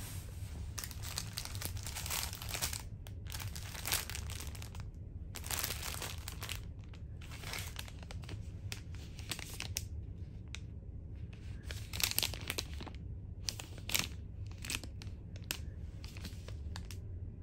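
Thin plastic packaging of a toothbrush amenity set crinkling as it is handled, with irregular crackles throughout, over a steady low hum.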